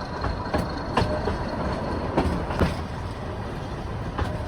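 Nilgiri Mountain Railway train running, with a steady low rumble and a few irregular clicks and knocks from the wheels over the rail joints.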